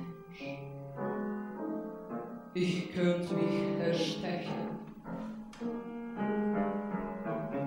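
Piano playing a passage of sustained, overlapping chords and notes.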